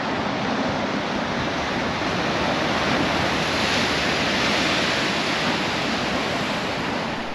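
Ocean surf breaking and surging over shoreline rocks: a continuous rush of water that swells a little louder around the middle as a bigger wave crashes and sprays against the rocks.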